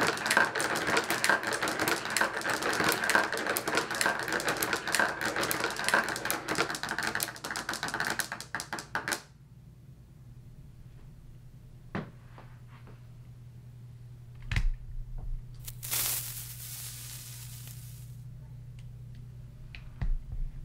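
Many glass marbles rattling along a tabletop marble run of wooden blocks and plastic channels and clicking into place in a grid, a dense rapid clatter that stops suddenly about nine seconds in. After it come a few single clicks and a brief rustle over a low steady hum.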